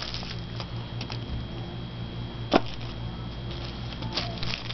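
Faint rustling and light clicks of tissue-paper squares being crumpled and pressed onto a paper plate, with one sharp tap about two and a half seconds in, over a steady low hum.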